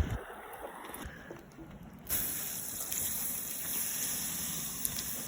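Steady rush of running water that starts abruptly about two seconds in, after a quieter stretch.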